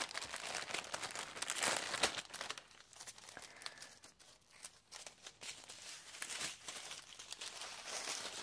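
Plastic packets of diamond-painting drills crinkling as they are handled, most in the first two seconds or so, then softer with scattered small crackles.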